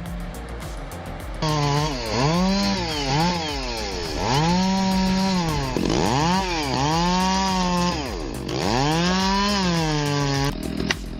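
Two-stroke chainsaw engine revving, its pitch swinging up and dropping back about six times as the throttle is worked and the chain bites into the wood. It starts sharply about a second and a half in and cuts off near the end.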